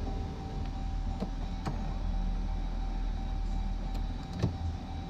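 Power seat motor running as the passenger seat is driven forward and up. The low idle of the Jeep Grand Cherokee's 3.6-litre V6 sits underneath, and a few faint clicks come from the seat mechanism.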